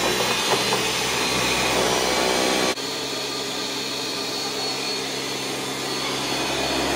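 Ninja Professional countertop blender running at full power, crushing frozen strawberries and bananas into a smoothie. About three seconds in the sound suddenly drops a little and evens out as the frozen fruit is broken down and the mix turns liquid.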